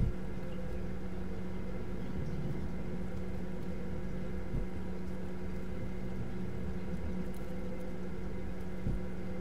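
Steady low room hum, with a few faint knocks: once at the start, once about halfway and once near the end.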